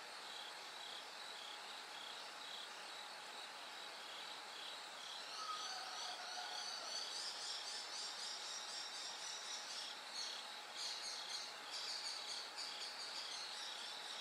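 Chorus of autumn insects, bell crickets among them: a steady, evenly pulsing high chirping, joined about a third of the way in by a louder, denser, higher trilling.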